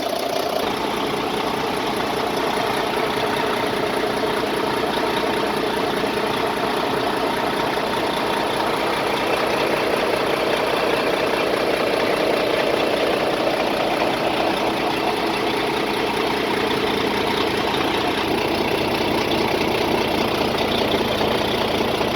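Diesel engine of a 2012 Volvo VNL semi truck idling steadily.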